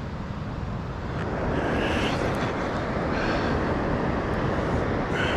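Steady rushing of wind on the microphone mixed with surf, growing louder about a second and a half in.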